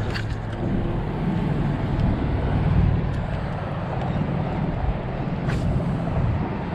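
Steady low rumble of road traffic on the nearby bridge, swelling about two to three seconds in as vehicles pass. A sharp click comes near the start and another a little past halfway.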